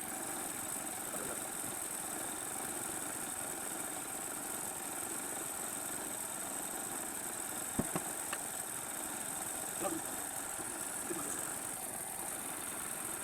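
A steady machine running, like an engine idling, with a high hiss over it and a few light clicks about eight and ten seconds in.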